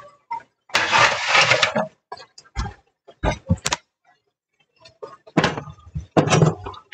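Kitchen-counter handling noises: a rush of noise about a second long, then several sharp knocks and low thumps as the camera is picked up and moved, and more clatter near the end.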